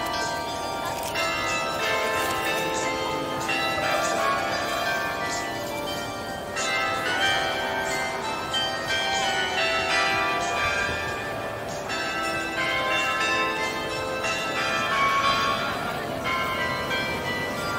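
Tuned bells playing a melody, successive notes struck and ringing on over one another.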